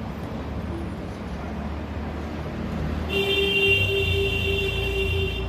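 Steady road-traffic rumble. From about three seconds in, a vehicle horn sounds with a steady tone for about two and a half seconds.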